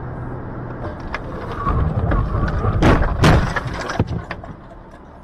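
A car collision heard from inside the car: steady road noise, then about three seconds in two heavy impacts with crunching and clattering, trailing off into scattered rattles.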